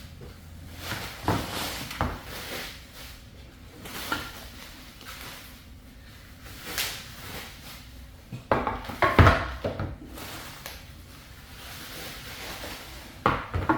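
Packing material and boxed vise parts being handled and pulled from a cardboard box: rustling with scattered clunks and knocks, loudest in a cluster about nine seconds in.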